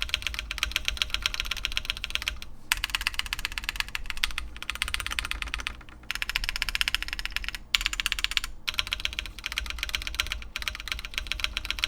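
Fast typing on a Keychron Q1 Pro mechanical keyboard: quick runs of keystrokes broken by several short pauses.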